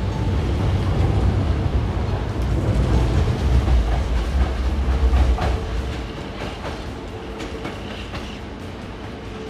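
Hankyu 8000 series GTO-inverter train running along the track, its wheels clacking over rail joints. The heavy rumble fades away about six seconds in as the train draws off.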